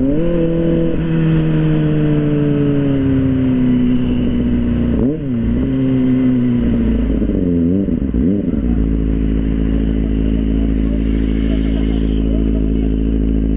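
Kawasaki ZX-25R's inline-four engine through an Arrow aftermarket exhaust: engine pitch slowly falls, dips and recovers a few times, then settles into a steady idle from about nine seconds in.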